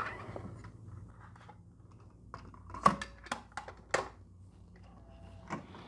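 Plastic clicks and knocks of a cassette tape being handled and loaded into the cassette door of a Sony TC-KA3ES deck. A cluster of sharp clicks comes about three to four seconds in and one more near the end, over a faint steady hum.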